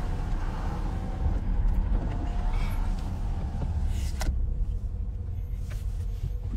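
Steady low rumble with a faint constant hum, picked up by a phone's microphone, and one short knock about four seconds in.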